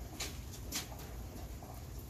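Light handling noise from gloved hands working at an engine: faint rustling and two short scratchy ticks, about a quarter and three quarters of a second in, over a low steady rumble.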